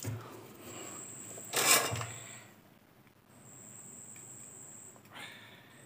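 Handling noise of a soldering iron and a flux tin being picked up and worked at a circuit board: a loud scrape-like rustle about one and a half seconds in and a shorter one near the end. A thin high-pitched steady whine comes and goes in long stretches.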